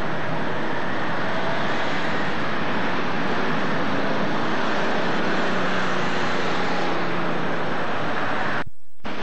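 Steady city street traffic noise from passing cars and buses, briefly cutting out near the end.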